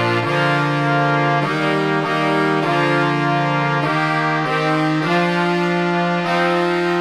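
Cornets and baritones playing a simple tune together in four-part harmony. The notes are held for one or two beats and change together at a steady walking pace.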